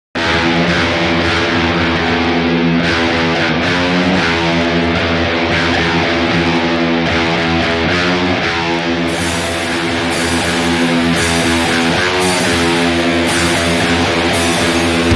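Dean ML electric guitar played through an amp along with a recorded rock song. The music starts suddenly right at the beginning and runs at an even level.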